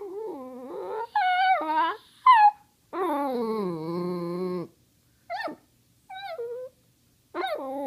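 A small dog 'talking': a string of whining, yowling calls of changing pitch, about seven in all, the longest one near the middle drawn out for nearly two seconds and dipping then rising in pitch. The dog is begging for treats.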